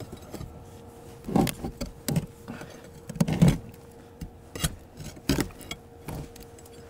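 Sledgehammer blows knocking built-up ice off a Sherp all-terrain vehicle's body, slabs of ice breaking away. About six uneven strikes, the loudest pair about three and a half seconds in.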